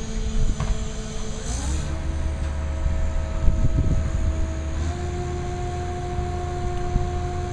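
Crane engine running under load, a low rumble with a steady whine that steps up in pitch about a second and a half in and again about five seconds in.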